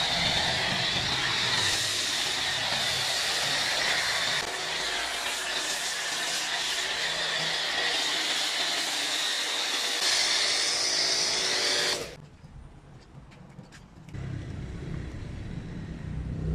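Pressure washer foam cannon spraying snow foam onto a car, a loud steady hiss that cuts off suddenly about twelve seconds in. After a short quieter gap, a low rumble comes in near the end.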